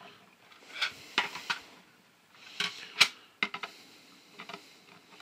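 Hard plastic toy ATV and its clip-on guns clicking and knocking as gloved hands turn it over on a tabletop: a series of sharp clicks in small clusters.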